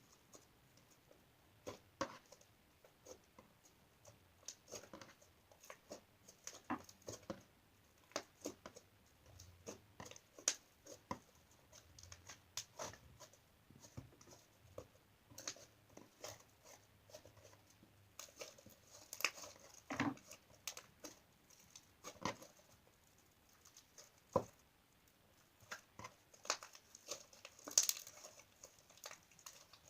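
Slime being squished and poked by hand: irregular soft pops, clicks and crackles.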